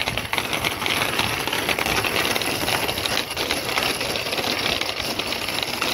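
Child's bicycle with training wheels rolling over brick pavers, a steady rattling clatter of the frame and small wheels.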